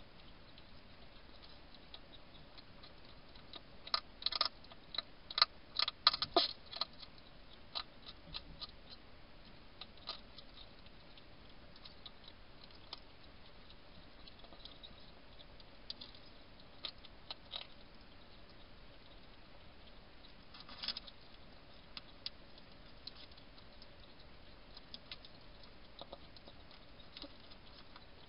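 Wild hedgehog feeding at a bowl: irregular small sharp clicks and crunches, a busy run of them about four to seven seconds in and then scattered bursts.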